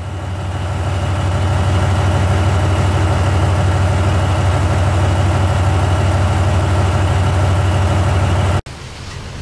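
DF200-7000 diesel-electric locomotive idling at a standstill, a steady low engine hum with a fast even throb. It fades in at the start and cuts off abruptly near the end, replaced by a quieter steady engine sound.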